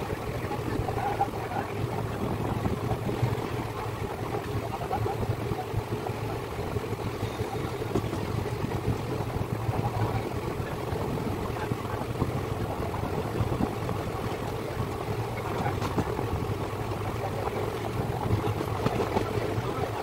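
Indian Railways express train coach running along the track, heard from an open doorway: a steady rumble of wheels on rails.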